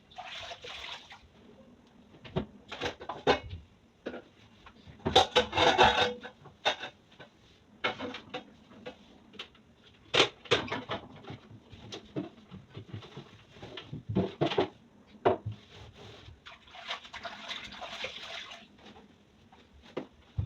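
Kitchen cleaning and tidying sounds: objects handled and set down in scattered knocks and clicks, with a few short hissing, rushing noises, one about five seconds in and a longer one near the end.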